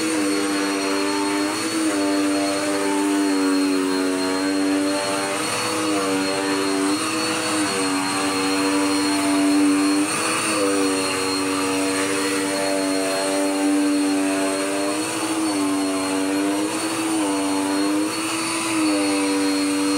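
Dirt Devil Power Max upright vacuum cleaner running with a steady motor whine, its pitch sagging briefly every one to three seconds, over a thin high-pitched tone.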